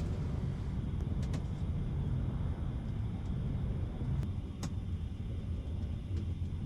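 A steady low rumble with a few faint light clicks, a pair about a second in and another pair around four seconds in.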